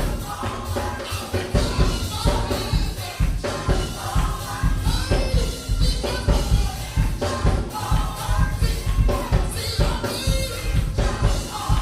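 Live gospel worship music: a group of voices singing over a band with a steady drum beat.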